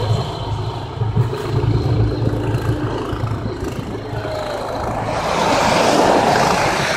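Engine of a tracked motorized snow tow running as it pulls its sled over the snow, a steady low hum with a rushing noise that swells louder about five seconds in.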